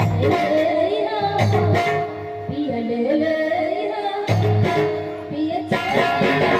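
Bhojpuri folk song performed live: a woman singing a wavering melody over instrumental accompaniment, with low drum strokes.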